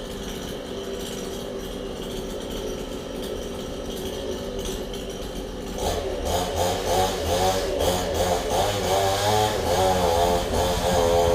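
Chainsaw engine running steadily, then revving up about six seconds in, its pitch rising and falling as it works, typical of cutting into wood.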